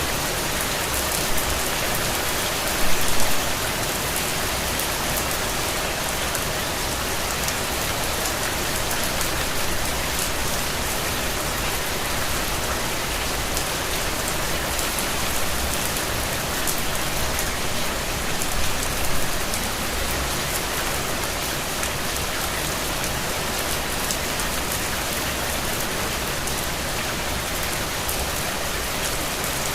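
Steady rain falling on a surface, a dense patter of drops with a few briefly louder patches about three seconds in and near the middle.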